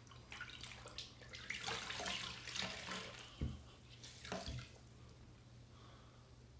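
Water running and splashing irregularly into a bathroom sink, with two short knocks, dying away about two thirds of the way through.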